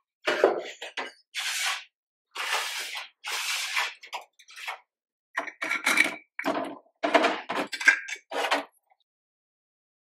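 Close-up handling sounds: a plastic nursery pot knocked and scraped into a ceramic planter with leaves rustling, then glass bottles clinking and knocking in a stainless steel sink as their plastic screw caps are twisted off, a quick run of clicks and taps in the second half.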